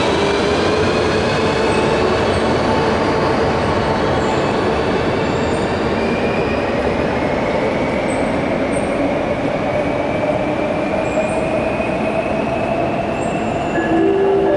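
Renfe Cercanías electric commuter train pulling out of an underground station. Its traction motors whine, rising slowly in pitch as it accelerates away into the tunnel, over a steady rumble of wheels on rail. Near the end a few steady tones join in.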